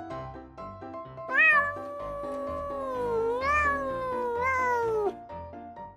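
Cat giving one long, drawn-out meow of nearly four seconds, rising and falling in pitch a few times before cutting off, over background music.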